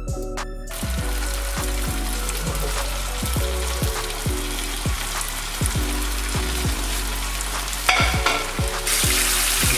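Flour-coated chicken pieces deep-frying in hot oil over a low flame: a steady, dense sizzle that starts about a second in and grows louder near the end.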